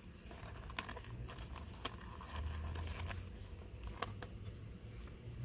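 Faint handling sounds of plastic connectors and trim being worked by hand on a car's steering column: a few sharp clicks, the loudest about two seconds in.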